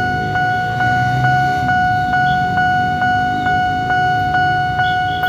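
Railway level-crossing warning alarm ringing: steady electronic tones with a regular strike repeating about two and a half times a second, signalling that a train is approaching and the barriers are down. Under it runs the low rumble of traffic engines waiting at the crossing.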